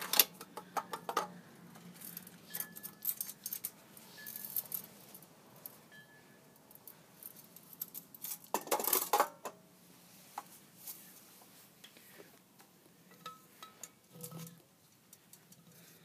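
Small metal parts and tools clinking and clattering as they are handled, with a longer, louder clatter about eight and a half seconds in.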